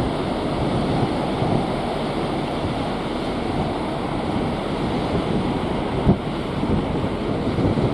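Steady rush of wind and sea water with wind buffeting the microphone, and a brief thump about six seconds in.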